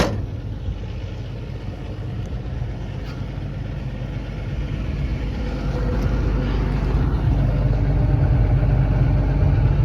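Cummins diesel engine of an XCMG XE210CU track excavator running steadily at idle, getting louder over the second half. Earlier it was judged to run well with no blow-by. A sharp click comes right at the start.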